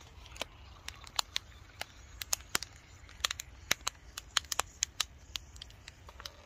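Irregular sharp crackles and ticks, several a second, from handling a self-heating meal pouch in its white paper heater sleeve.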